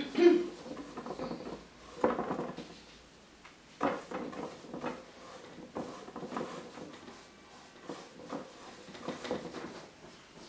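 Paintbrush scrubbing oil paint onto canvas in a run of short scratchy strokes, one every second or two. A brief pitched sound right at the start is the loudest moment.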